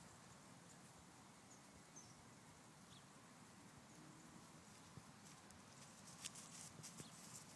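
Near silence: faint outdoor background, with a few soft clicks and rustles near the end.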